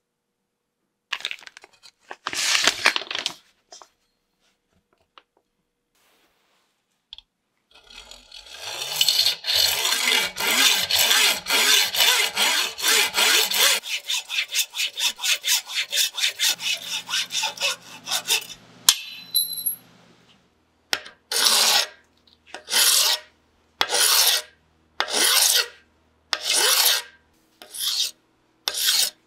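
Hacksaw cutting a brass bar clamped in a vise, in a run of quick back-and-forth strokes. Later a flat file is pushed across the cut end in slower, even strokes about one a second.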